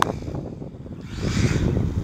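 Wind buffeting the phone's microphone: an uneven low rumble, with a brief hiss a little past halfway.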